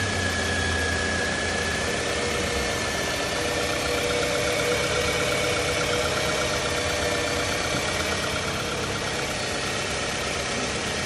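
2005 Toyota Camry's 2.4-litre four-cylinder engine idling steadily with its newly replaced alternator and belt-driven accessories turning, a faint steady whine running over the idle.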